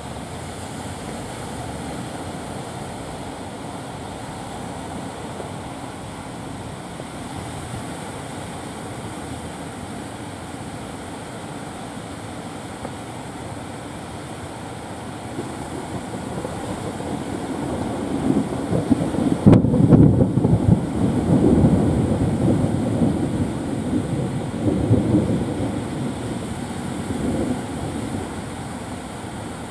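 Surf washing onto a beach, with wind buffeting the microphone. The sound grows louder from about halfway through, is loudest around two-thirds in, then eases.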